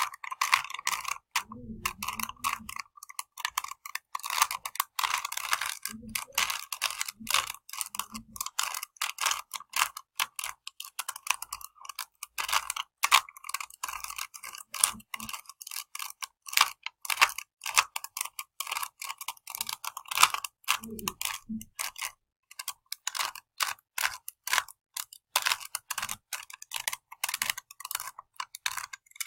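A tiny plastic Rubik's Cube being turned by hand: rapid, continual clicking and clacking of its layers as they are twisted.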